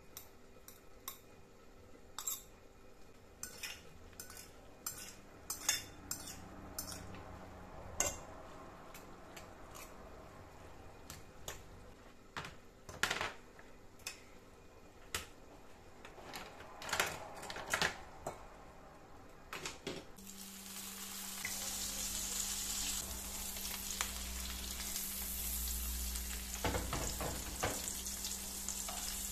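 A fork stirring grated courgette batter in a bowl, with scattered clinks of metal on the bowl. About twenty seconds in, this gives way to a steady sizzle of a courgette fritter frying in oil in a pan, with a few spatula scrapes near the end.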